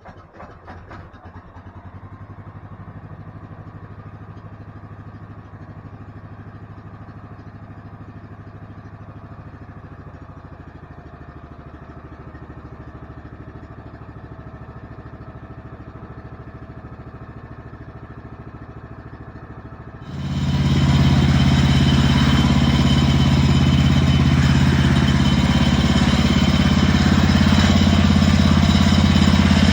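Gas engine of a Woodland Mills HM-126 portable bandsaw mill idling steadily. About twenty seconds in it is throttled up sharply to full running speed and runs much louder and steady.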